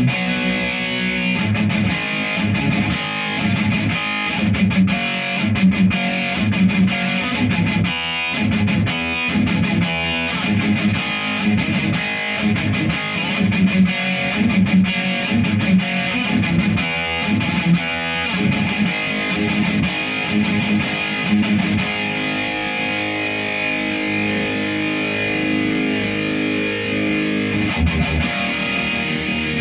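Distorted electric guitar played through an HM2-style Chainsaw EQ pedal into a Marshall amp, giving an old-school metal tone: rhythmic chugging riffs, then held chords for the last several seconds.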